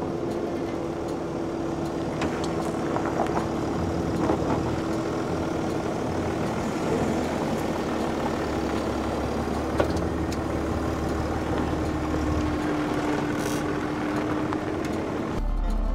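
Mercedes-Benz G-Class crawling slowly over gravel moguls, its engine running at a steady low speed with a constant hum, tyres crunching on gravel, and a few sharp knocks from the wheels and suspension as they articulate.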